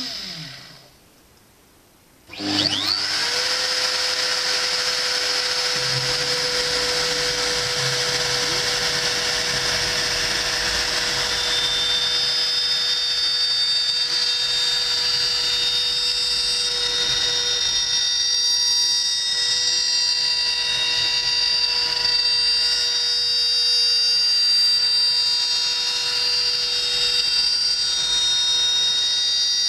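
CNC router spindle finishing its spin-down and falling quiet, then starting up again about two seconds in with a rising whine. It then runs at steady high speed as the bit mills a hardwood wheel.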